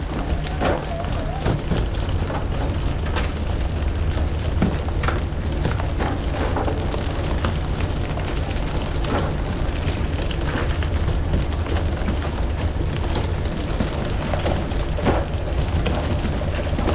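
Fishing boat's engine running steadily under a constant rush of water and spray, with frequent short knocks and splashes.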